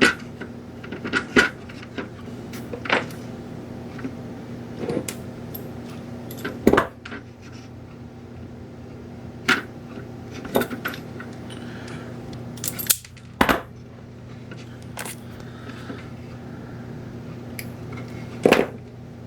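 Scattered clicks and knocks of small parts and tools being handled while fitting a strain relief to a lamp's power cable, over a steady low hum.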